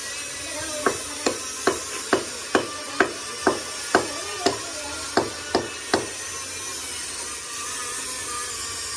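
About a dozen hammer blows on metal at a steady pace of two to three a second, each ringing briefly, stopping about six seconds in.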